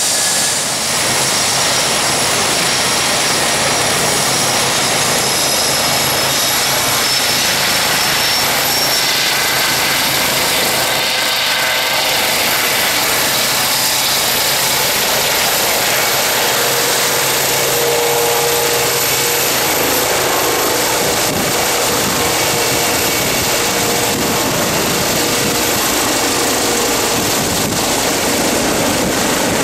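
Eurocopter EC135 P1 helicopter, its twin Pratt & Whitney turbines and rotor running loud and steady as it lifts off the pad and flies overhead. A very high turbine whine rises slowly in pitch through the first half.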